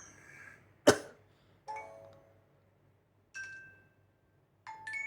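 Nokia Lumia 635 notification tones played through the phone's speaker: three short, different chimes in a row, each a few bright notes that ring briefly and die away, about a second and a half apart. Just before the first chime there is a single sharp knock, the loudest sound.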